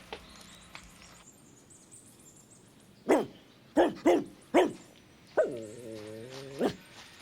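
A dog barking: four short barks in quick succession, then one longer, lower drawn-out whining bark.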